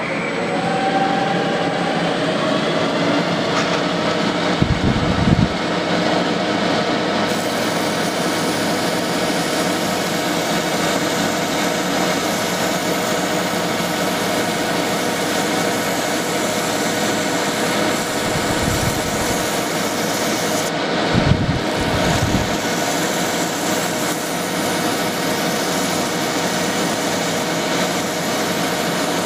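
Small metal lathe running, its pitch rising over the first couple of seconds as it speeds up, while a strip of emery cloth is held against the spinning steel Morse taper shank to polish down its scored high spots: a steady abrasive hiss over the motor's hum. A few low gusts of breath hit the microphone, one about five seconds in and more around twenty seconds.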